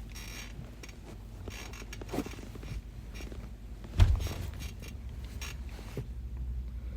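A woman's heavy snoring, a low rumble through the nose and throat with short noisy breaths, and one sudden loud catch in the breath about four seconds in.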